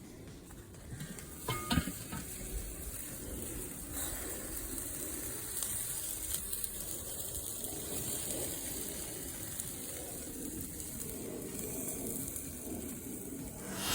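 Chicken wings sizzling over hot charcoal on a Weber kettle grill, a steady hiss with a couple of light knocks a couple of seconds in. A falling whoosh begins right at the end.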